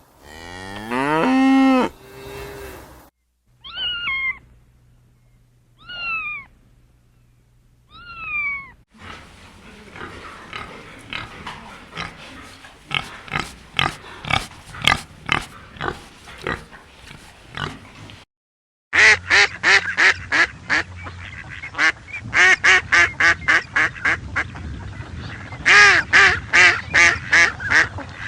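Several different farm animal calls in turn. First comes a long call that rises and then falls in pitch, then three short cries that each drop in pitch, then a long run of rapid repeated calls, and after a short gap, dense runs of quick pulsed calls.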